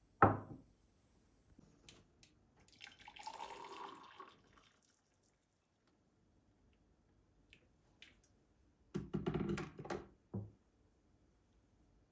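Household handling sounds: a sharp knock, then about two seconds of water running or pouring, then a short clatter and another knock.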